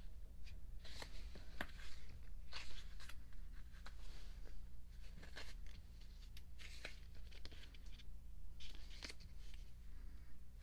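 Paper and packaging of a small album photobook being handled, with soft rustles, light ticks and page turns scattered throughout, over a steady low hum.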